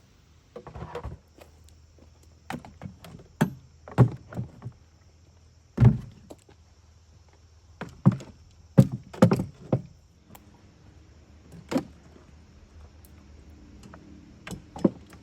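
A series of irregular knocks and thuds, about a dozen, as things are handled and set down, with the loudest near the middle.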